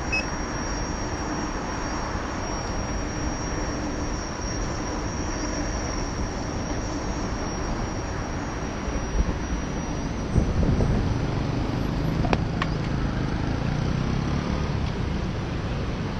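Steady wind rush and rolling noise from a Gotway MCM4 electric unicycle riding along a paved footpath, with road traffic heard behind it. The low rumble gets louder a little past the middle, as the unicycle nears a busy road.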